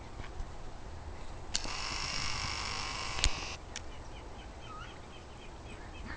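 Ducks quacking faintly in the distance. About a second and a half in, a loud burst of noise starts abruptly, lasts about two seconds with a sharp click near its end, then stops suddenly.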